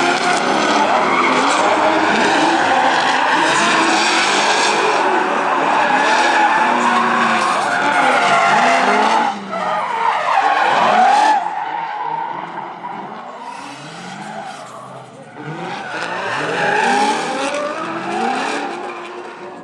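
Two drift cars sliding in tandem, one a Nissan S13 powered by a 7.0-litre LS7 V8, engines revving up and down at high rpm with tyres squealing and skidding. The sound cuts out briefly about halfway through, then grows quieter as the cars move off, swelling again for a moment near the end.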